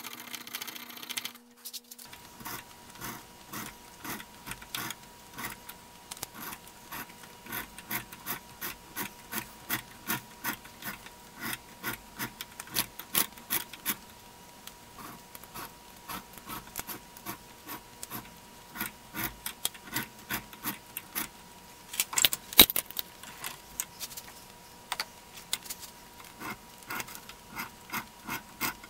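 Hand-scraping strokes of a thin steel blade or file worked back and forth along the square threads of a steel clamp screw, about two strokes a second, taking scale and excess silver solder out of the thread groove. A brief steady hum opens it and cuts off after about two seconds, and one sharper metallic knock comes about three-quarters of the way through.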